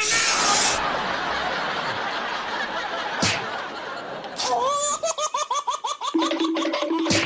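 A loud hissing rush in the first second, easing into a softer rushing noise, then a burst of high-pitched recorded laughter followed by a few short held jingle notes: a TV prank show's logo sting.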